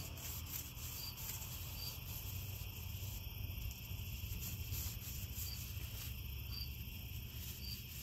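Crickets chirping steadily in a night-time chorus, with a low steady hum underneath.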